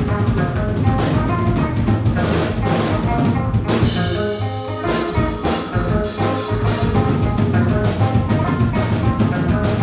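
Live band playing with a drum kit. About four seconds in the drums drop out briefly under held notes, then the full band comes back in.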